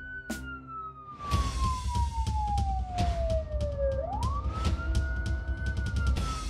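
Fire engine siren wailing: each cycle climbs quickly to a high pitch, holds briefly, then sinks slowly, with a fresh rise about four seconds in. Under it, from about a second in, a low rumble with a clatter of clicks.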